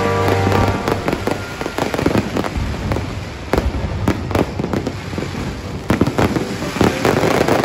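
Aerial fireworks going off in quick succession: a dense, uneven run of pops and bangs with crackle between them. Music stops under a second in.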